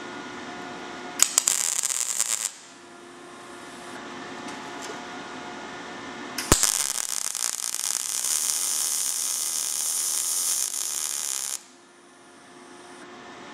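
MIG welder arc crackling on thin sheet steel, the steady frying sizzle of a correctly set-up machine. A short burst comes about a second in, then the arc strikes with a sharp crack and runs steadily for about five seconds, laying a bead along a tacked butt joint before cutting off.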